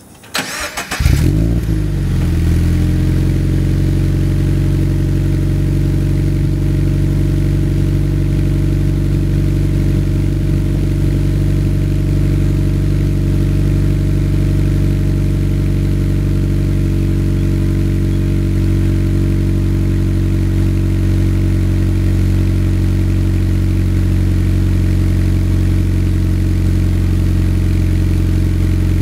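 Cold start of a Subaru BRZ's flat-four engine through a MagnaFlow cat-back exhaust. It cranks briefly, catches about a second in with a short flare of revs, then settles into a steady idle.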